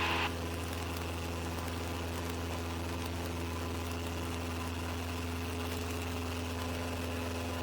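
Single-engine Cessna's piston engine and propeller droning steadily in flight, an even low hum with a few constant tones, heard through the cockpit intercom. The level dips slightly just after the start and then holds flat.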